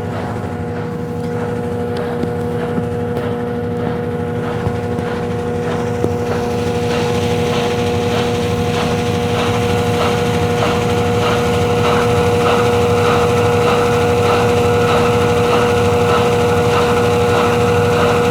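Consul washing machine in its spin cycle with a load of double bed sheets: a steady motor hum with a whine on top, growing a little louder and brighter from about six seconds in, with faint light ticking.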